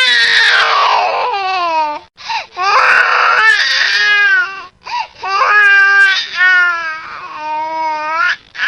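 Baby crying hard: a run of loud wails, several falling in pitch, broken by short gasps for breath.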